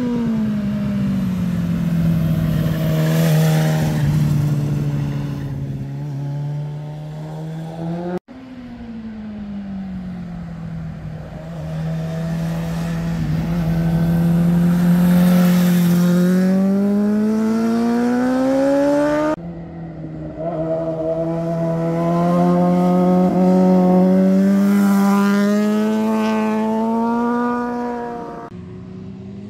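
Motorcycle engines taking hairpin bends, three separate passes one after another. In each, the engine note drops as the bike slows into the curve, holds steady through it, then rises as the rider accelerates out. The pass near the end climbs furthest.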